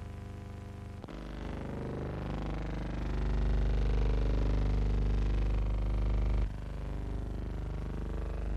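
Steady low hum with a stack of evenly spaced overtones, typical of the noise on a silent film's soundtrack. It jumps louder about a second in and drops back abruptly about six and a half seconds in, in step with the shot changes.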